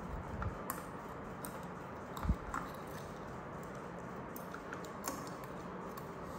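Faint, scattered clicks and taps of a baby monkey handling a small milk bottle in a wicker basket, with one soft thump about two seconds in.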